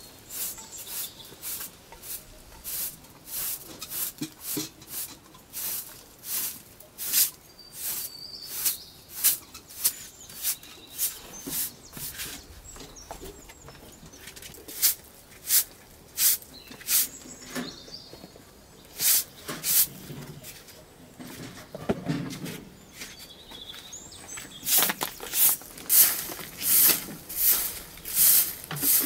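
Short straw hand broom sweeping a concrete floor: a run of brisk swishing strokes, about one to two a second, thinning out in the middle and coming fast again near the end.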